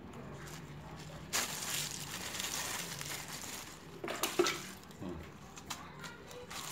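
Plastic sheet crinkling and rustling in a hand as raw meatball dough is pressed onto it, with a few sharper crackles about four seconds in.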